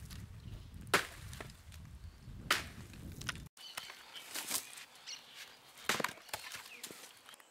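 Hatchet chopping into dry wood: a sharp knock with each blow, one every second or two. A low rumble sits under the first few blows and stops abruptly partway through.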